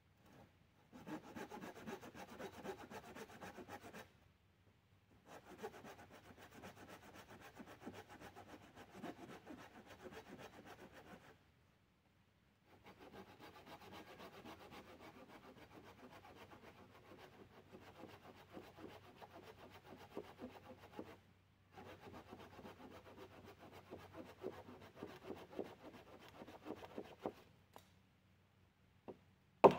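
Hand saw cutting through wood with quick back-and-forth strokes, in four long bouts with short pauses between.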